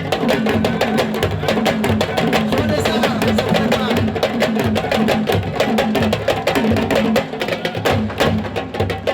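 Fast percussion music: dense, rapid drum strokes over a repeating low beat.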